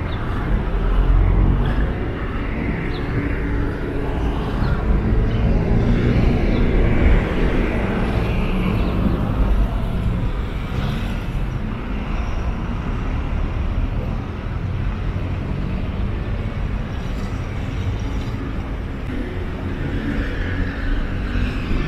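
Street ambience with steady road traffic, cars passing and running close by.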